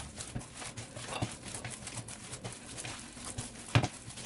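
Hands kneading soft bread dough in a bowl, working chopped garlic in: irregular soft thuds and light clicks, with the loudest thump near the end.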